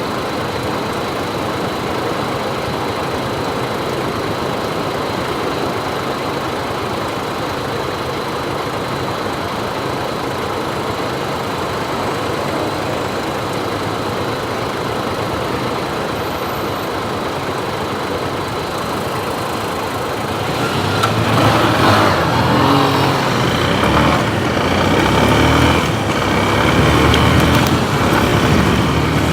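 Motorcycle ride heard from the bike: a steady rush of wind and engine noise. From about twenty seconds in it gets louder, and the engine's pitch rises and falls as it speeds up and changes speed.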